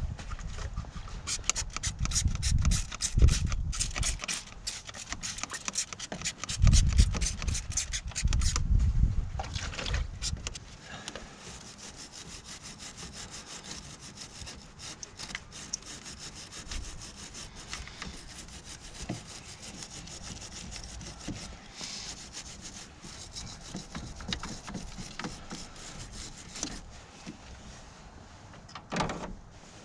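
A stiff brush scrubbing caked corrosion off a car battery terminal in rapid back-and-forth strokes. It is hard and fast for about the first ten seconds, then lighter and steadier.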